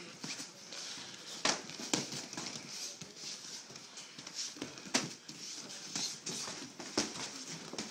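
Gloved punches and kicks landing during kids' kickboxing sparring: irregular dull smacks, the sharpest about one and a half, two, five and seven seconds in, with softer scuffing and rustling in between.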